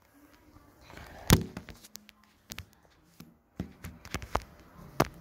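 Handling noise from the camera being grabbed and bumped: a string of sharp knocks and thumps, the loudest about a second in, with several more in the second half.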